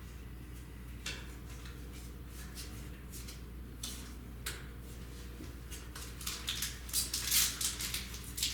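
Light rustling and flicking of Magic: The Gathering cards and booster-pack wrappers being handled, scattered at first and growing busier over the last couple of seconds.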